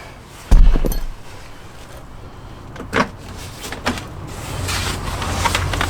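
A heavy thump about half a second in and a couple of sharp clicks, then a power window motor in a Land Rover Discovery 4 rear door starts to run with a steady hum that grows louder near the end.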